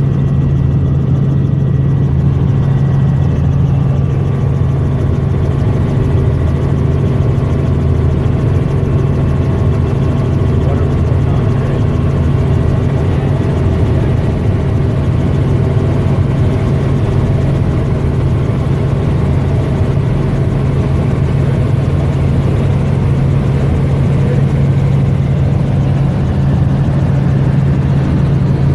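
Helicopter engine and rotor noise heard from inside the cabin in flight: a loud, steady drone with a strong low hum that holds unchanged throughout.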